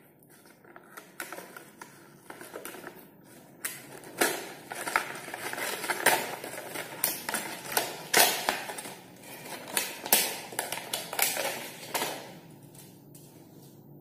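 Irregular clicking and crackling handling noise from flexible water-heater hoses and their fittings being handled, busiest from about four to twelve seconds in, then dying away.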